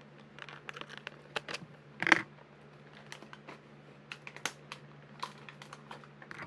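Small scissors snipping and clicking through a clear plastic blister pack, with scattered plastic clicks and one louder snap about two seconds in.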